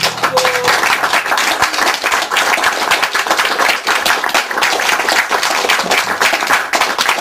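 Audience applauding, a dense patter of clapping hands that breaks out suddenly as the song's last guitar chord stops.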